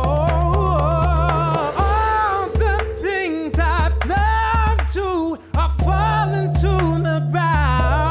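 A song: a voice sings a wavering melody over held bass notes and regular percussive strikes.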